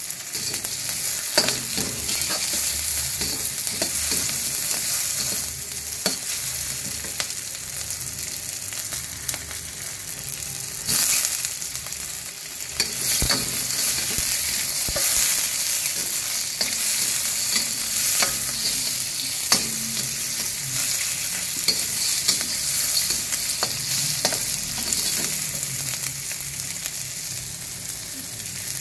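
Aromatics sizzling in oil in a stainless steel wok while a metal spatula stirs, scraping and clicking against the pan. The sizzle flares louder for a moment about eleven seconds in.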